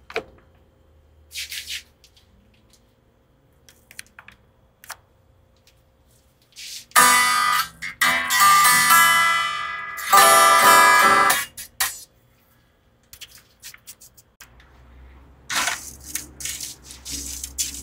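Gibson Les Paul–style electric guitar with freshly fitted, newly tuned Ernie Ball strings, played in two short ringing passages about seven and ten seconds in. Faint handling clicks come before and after.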